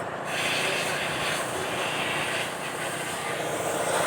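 A steady rushing hiss starts shortly in and runs for about four seconds, over a constant mechanical hum.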